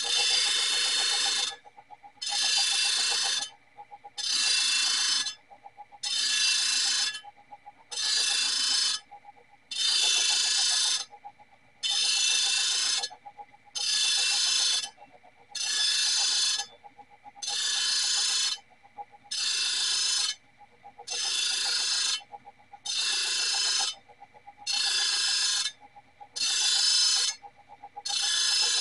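A circular steel slicer blade being sharpened in even, repeated rasping strokes, about one every 1.8 seconds and each lasting just over a second. A faint steady machine whine runs underneath.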